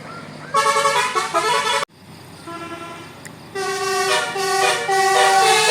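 Bus telolet musical horn (Basuri type) playing a tune of stepped notes on several tones at once. It stops suddenly just before two seconds in, plays softly for a moment, then loudly again for the rest.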